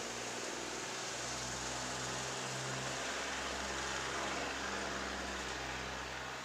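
A motor vehicle passing on the street, its engine hum and tyre noise swelling to a peak about four seconds in and then fading, under the steady hiss of a surveillance camera's microphone.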